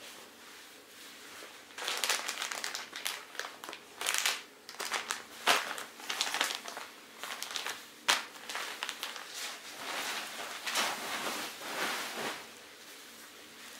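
Irregular crinkling and rustling of thin plastic, with a few sharper crackles, as a towel-wrapped hot-water bottle is pushed into a zip-top plastic bag and then handled into a bivy sack.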